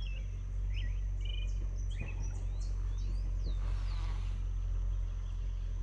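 Small birds chirping in short calls and quick slurred whistles over an insect's steady high buzz, with a steady low rumble underneath.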